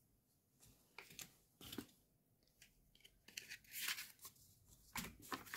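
Faint, scattered rustles and light taps of hands handling small cosmetic packaging and wrapping paper in a cardboard box.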